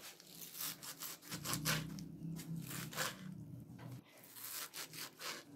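Kitchen knife chopping fresh fenugreek leaves on a wooden cutting board, a run of short cuts about two to three a second as the greens are cut coarsely.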